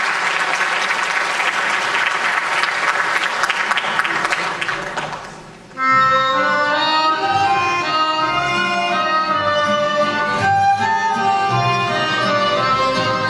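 Audience applauding, fading out about five seconds in; then a folk band with accordion and violin starts playing a melody.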